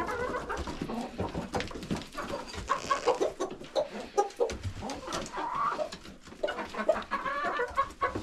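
Backyard bantam chickens clucking in short calls, with higher warbling calls near the end and scattered light clicks and knocks among them.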